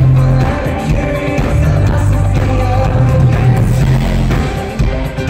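A live pop-rock band playing loudly: lead vocals over electric guitar, keyboards, drums and heavy bass.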